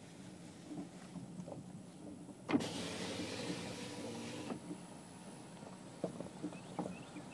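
Car's electric power window motor running for about two seconds, starting suddenly and stopping sharply, a pitched hum with a hiss over it.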